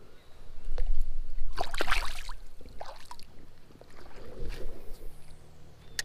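Water splashing about a second and a half in as a small bass is dropped back into the creek, followed by lighter sloshing of creek water.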